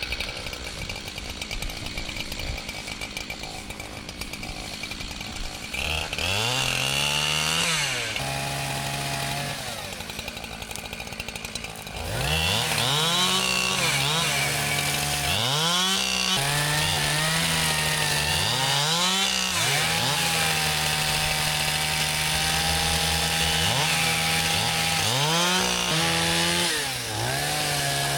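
Chainsaw revving up and down again and again, held at full throttle for a few seconds at a time while cutting fallen trees off a fence line. It runs lower and quieter for the first several seconds.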